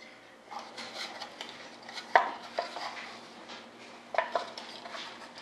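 Small clicks and clinks of pliers and safety wire being worked by hand on airline fittings, irregular, with the sharpest click about two seconds in.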